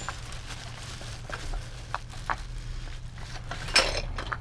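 Light clicks and knocks of small wooden knick-knacks being handled and shifted in a box, with a sharper knock near the end, over a steady low hum.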